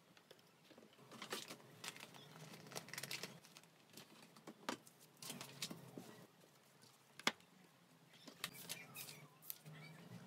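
Small objects handled on a desk: irregular light clicks and short rustles, with one sharper click about seven seconds in.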